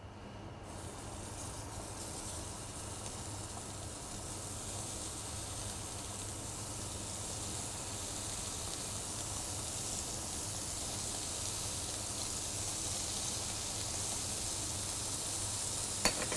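Strips of beef tenderloin sizzling in a hot frying pan as they are quickly seared, the sizzle starting just after the first piece goes in and slowly growing louder as more pieces are added.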